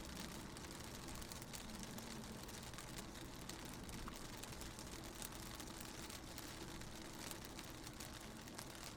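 Raindrops pattering on a car window, heard from inside the car as it drives, with many small scattered drop ticks over a steady low road rumble.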